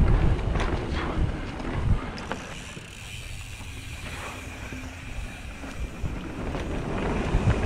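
Wind buffeting the microphone while a mountain bike rolls over a dirt singletrack trail, with knocks and rattles from bumps, most of them in the first two seconds. Quieter in the middle, then louder again near the end.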